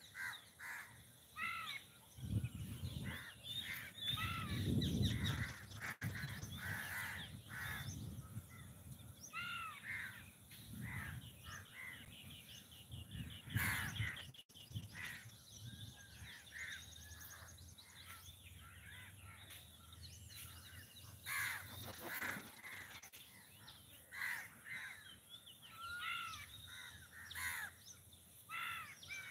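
Crows cawing over and over, with other birds calling among them. A low rumble swells a couple of seconds in and fades away by about six seconds.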